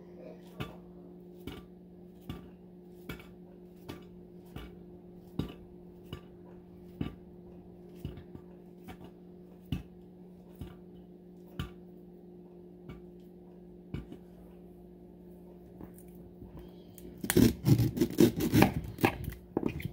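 Bananas being sliced with a knife straight into a dish, a short click about once a second as each slice is cut and drops in, over a steady low hum. Near the end comes a louder clatter lasting about two seconds.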